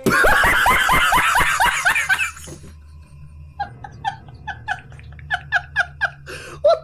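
Laugh sound effects: a loud burst of laughter with fast repeated 'ha's that stops after about two seconds. After a short gap comes a quieter run of evenly spaced chuckles, about four a second, over a steady low hum.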